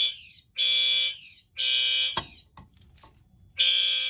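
Several fire alarm horns sounding together in the code-3 temporal pattern: three half-second blasts, a pause of about a second and a half, then the next set of blasts begins. A single sharp click comes just as the third blast ends.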